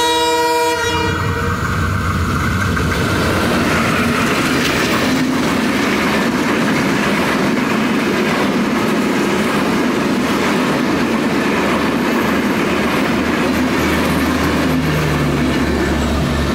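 Intercity passenger train's horn, which stops about a second in. Its coaches then pass close by with a steady rumble and clatter of wheels over the rails.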